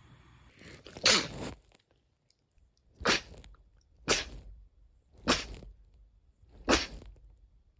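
A run of five sharp sneezes, the first about a second in after a brief intake, the rest following one to one and a half seconds apart.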